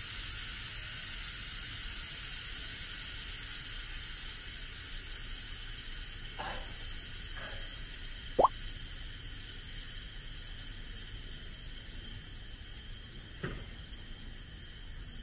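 Parked Seibu 101-series electric train's onboard equipment humming and hissing, slowly fading as its power is switched off. A few short rising chirps cut through it, the loudest about eight seconds in.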